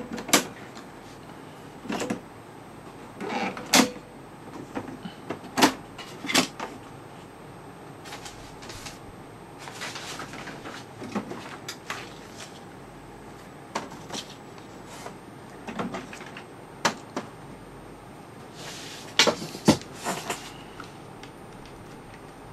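Irregular sharp plastic clicks and knocks, more than a dozen, from an HP Officejet Pro 8100 inkjet printer's printhead carriage and latch being worked by hand and the printhead lifted out and handled.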